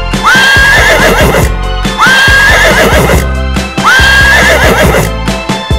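Horse neighing three times, about two seconds apart, each whinny rising sharply and then wavering. Background music with a steady beat plays underneath.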